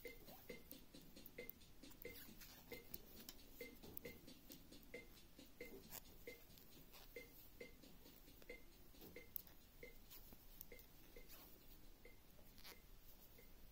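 Faint, quick clicking of two knitting needles as stitches are worked along a row, a couple of light ticks a second.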